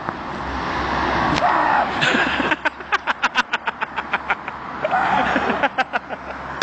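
A vehicle passing on the road, its noise building over the first couple of seconds and again near the end. In between comes a fast run of short, sharp bursts, about five or six a second.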